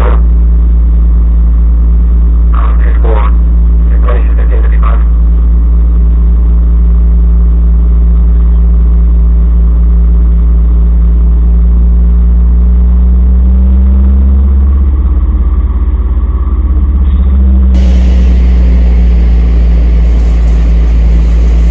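Loud, steady engine drone, its pitch rising briefly a little after halfway and then settling back.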